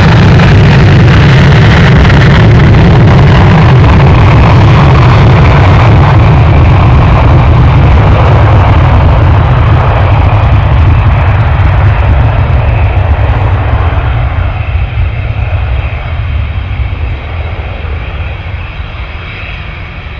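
Jet engine noise from a Turkish Airlines Airbus A321 passing the spotter position, a loud, deep rumble that holds steady for about ten seconds and then fades gradually as the airliner moves away.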